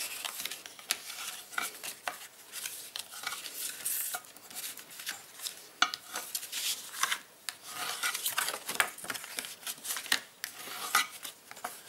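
White cardstock rustling and scraping as it is folded along its score lines and creased with a bone folder, in short, irregular rustles and scrapes.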